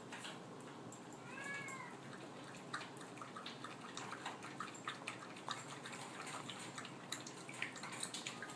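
Yorkie making one short squeaky call that rises and falls in pitch about a second in, followed by a run of quick small clicks and smacks of eating.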